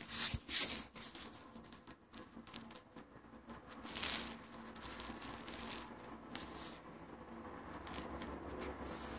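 Close rustling and scraping against carpet right at the microphone, irregular, loudest about half a second in and again around four seconds.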